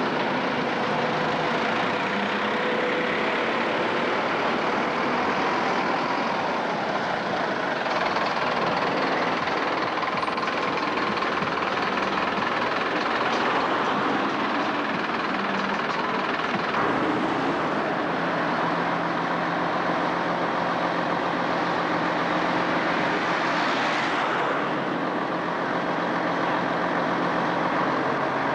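Street traffic passing close by: cars, a lorry and buses driving past, a steady mix of engine and tyre noise.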